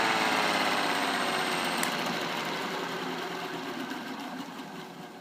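Laser-cut wooden air-raid siren spinning down after its Dremel drive is switched off: the wail falls in pitch and fades away steadily into a whir.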